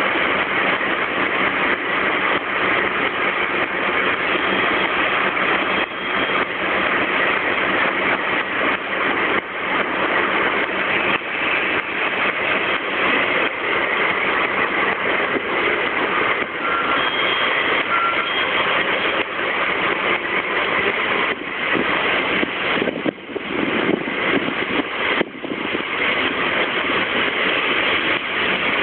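Kinuura Rinkai Railway KE65 diesel locomotive running steadily as it moves along hauling a train of container wagons. Two short beeps sound a little past halfway.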